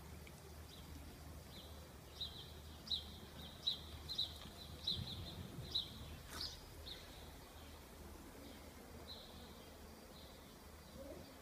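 A small bird chirping in short, high, repeated notes, thickest through the middle of the stretch and fainter toward the end, over a faint outdoor background hum. A single sharp click comes a little after the middle.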